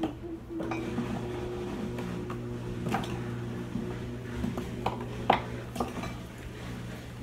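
Scattered clinks and taps of kitchen containers and utensils being handled, over a steady low hum that grows stronger about half a second in.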